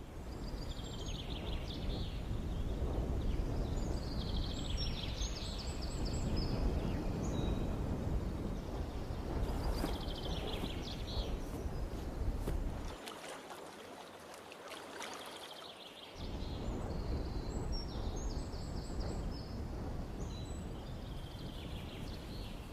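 A bird singing, repeating short phrases of rapid high trilled notes every few seconds, over a steady low rumbling background noise that drops away briefly in the middle.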